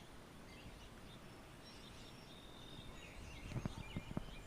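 Faint outdoor ambience with small birds chirping in the background, and a few soft knocks near the end.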